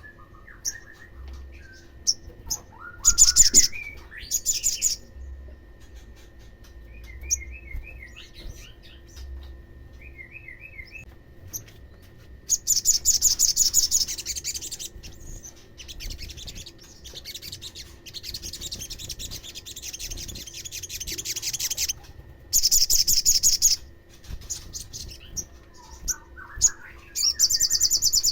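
Olive-backed sunbird song: bursts of rapid, high trills lasting one to two seconds, with short twittering chirps between them. A faint steady hum runs underneath.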